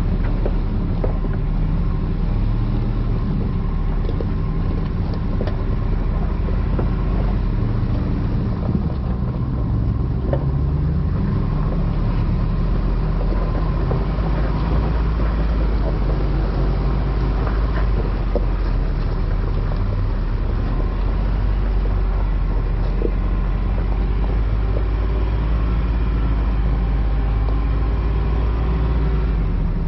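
Ram 1500 TRX's supercharged 6.2-litre V8 running at low speed as the truck crawls over a rocky trail, with rocks and gravel crunching and clicking under the tyres.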